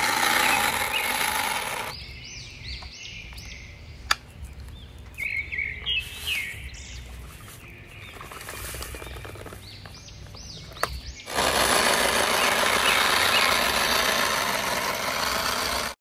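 Steady rushing noise that drops away about two seconds in, leaving a run of high, bird-like chirps and two sharp clicks, then returns loudly about eleven seconds in.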